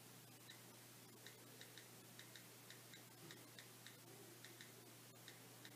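Faint key clicks from an iPod touch's on-screen keyboard as an email and password are typed: irregular short ticks a fraction of a second apart, about twenty in all.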